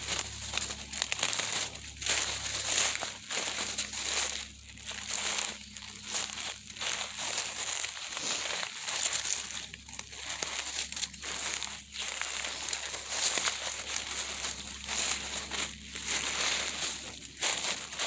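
Footsteps crunching and rustling through dry leaf litter at a walking pace, a step every second or so.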